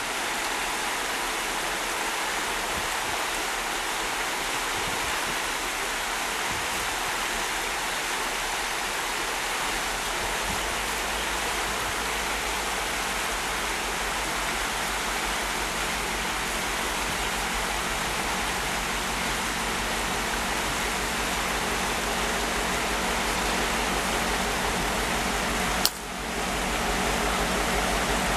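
Creek water rushing steadily, with the low engine hum of an approaching diesel locomotive coming in about a third of the way through and growing slightly. There is a single sharp click near the end.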